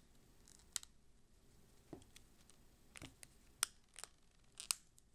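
Faint, scattered clicks and taps of a hard-plastic phone case's fold-out kickstand as it is flipped open and handled, about seven small clicks spread over a few seconds.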